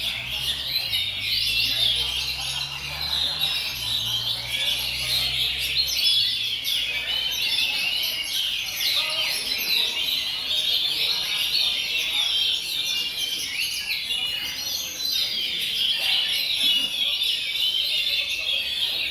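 Many caged oriental magpie-robins singing at once in a dense, unbroken chorus of rapid chirps and whistles, as in a contest round.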